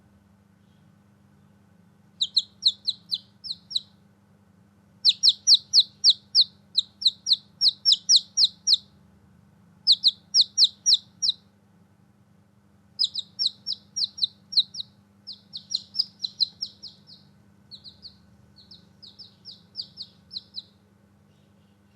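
Newborn chicks chirping: runs of short, high peeps, several a second, coming in bursts with brief pauses between.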